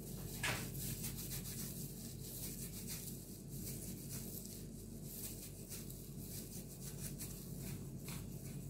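Soft rustling and crackling of plastic disposable gloves as hands squeeze and shape mashed potato and roll it in breadcrumbs, with a sharper tick about half a second in, over a steady low hum.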